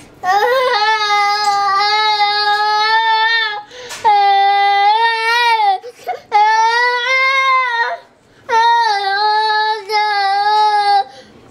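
High-pitched whining voice: four long drawn-out notes of about two to three seconds each, held fairly steady with slight bends in pitch, separated by short pauses.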